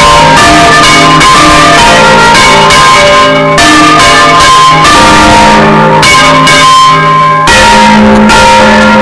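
Church bells ringing a rapid festive peal (repique): several bells swung full circle, struck in quick succession so their ringing overlaps. Very loud, heard up close inside the belfry.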